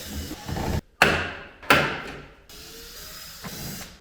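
A few sharp knocks and clunks of car interior plastic trim being pulled off and handled, each dying away quickly, with the sound cutting off abruptly a couple of times.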